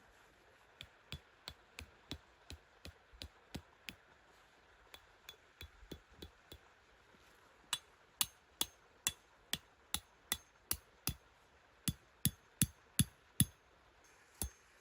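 A run of sharp, even strikes, two to three a second, each with a light metallic ring, like something being hammered. There are short pauses, and the blows are louder from about halfway through.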